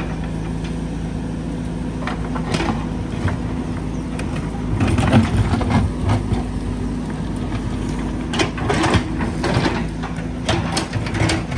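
A machine engine running steadily with a low hum, with scattered knocks and clatter of work on top, busiest about halfway through and again near the end.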